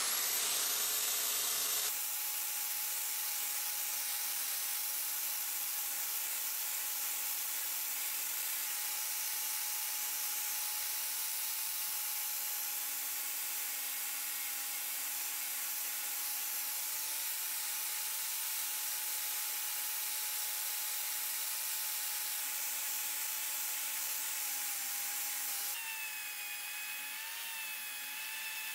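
Angle grinder fitted with a wire brush wheel spins up with a rising whine, then runs steadily against bog oak, scouring the bark off the natural edge. Near the end an electric drill with a wire wheel brush takes over, with a whine that wavers in pitch.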